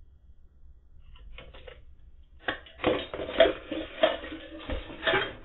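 Irregular clattering and knocking, a few faint knocks first and then a busy run of sharp knocks in the second half, heard through a security camera's narrow-sounding microphone. It fits a cat at a plastic food container on a tiled floor knocking it about.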